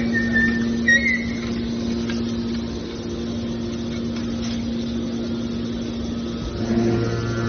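Hydraulic metal shear baler running with a steady hum from its pump and motor, with a brief high squeal about a second in. The hum grows heavier and louder near the end, as if the machine takes up load.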